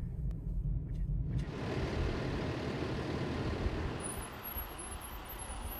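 Low engine and road rumble inside a moving car for the first second or so, then an even rushing noise across low and high pitches for the rest, with faint high chirps near the end.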